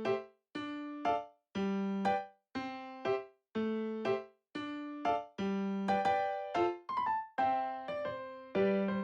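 Background music: a light keyboard tune of short, quickly fading piano-like notes in an even pulse of about one a second, with brief gaps between.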